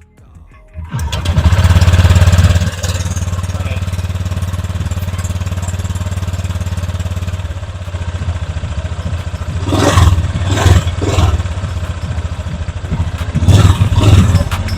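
Honda Click 125i scooter's single-cylinder engine heard through its stock muffler: it starts about a second in, settles into a steady idle, then the throttle is blipped three times in quick succession and a few more times near the end.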